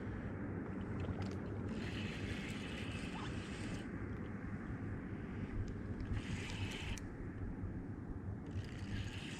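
Steady low rumble of wind and water around a small fishing boat, with a faint low hum and three spells of higher hiss.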